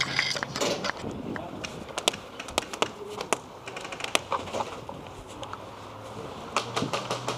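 Rustling of clothing and gear as a player moves in a crouch, with scattered sharp clicks and knocks.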